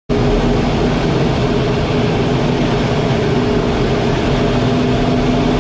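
Jet aircraft engine noise: a loud, steady rush with a low hum and a constant tone underneath.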